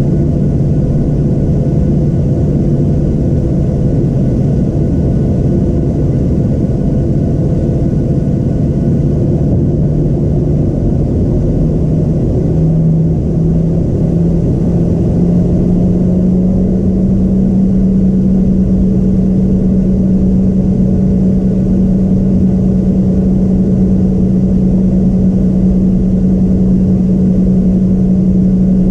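Boeing 737-700's CFM56-7B jet engines running at taxi power, heard inside the cabin over the wing: a steady low drone with rumble. About halfway through the engine note steps up in pitch and grows a little louder as the engines spool up slightly.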